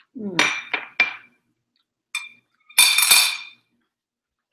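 Small glass bowl and metal chopsticks clinking against a granite countertop as they are set down. A short scrape and three clinks come in the first second, a single clink around two seconds, then a louder, ringing clatter around three seconds.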